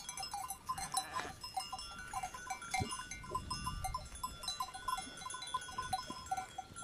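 Bells worn by a grazing flock of sheep and goats, clinking irregularly and steadily, with a short bleat about a second in.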